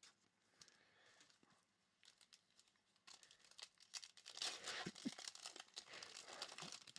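Faint crinkling and crackling of a trading-card pack's foil wrapper being torn open and handled, with small clicks. It thickens into steady rustling about three seconds in.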